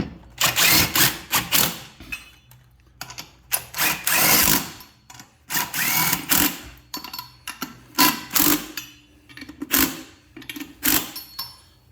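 Lug nuts being run down onto the studs of a dual wheel mounted on a garden tractor's axle extension. The tool gives several short bursts of rapid mechanical clatter with brief pauses between them.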